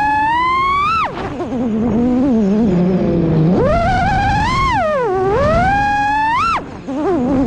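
FPV quadcopter's brushless motors on a 6S battery whining, the pitch climbing with throttle and then dropping sharply as the throttle is cut, about a second in and again near the end. In between, the pitch sinks low for a couple of seconds before climbing again.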